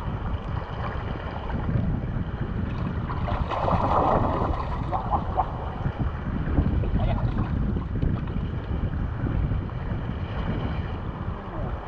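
Wind rumbling on the microphone over the wash of sea waves, swelling louder for a moment about four seconds in.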